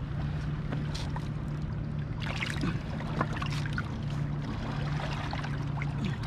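A steady low motor hum over sea water washing, with a few faint clicks.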